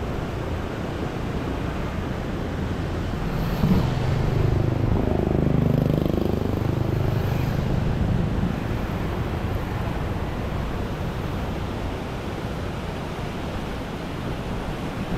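Steady rushing noise of fast-flowing water and wind, with a motor vehicle driving past between about four and eight seconds in, its engine note rising and then falling as it goes by.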